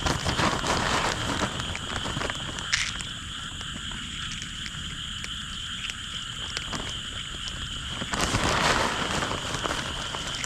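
A frog chorus: a steady high-pitched trilling. Under it runs low rumbling and rustling noise, which swells near the start and again about eight seconds in.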